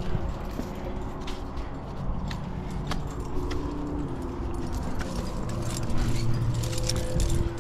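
Climbing gear on a harness (carabiners and cams) jingling and clinking with the climber's movements while scrambling over granite boulders, with scuffs of hands and shoes on the rock. A low rumble of handling noise swells about two-thirds of the way in.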